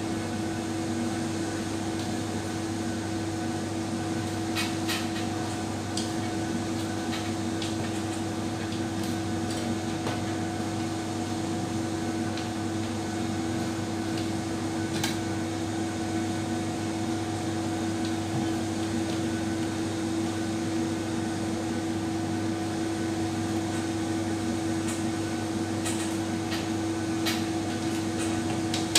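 Steady machine hum at an even pitch, like a fan or motor running, with a few faint clicks and taps now and then.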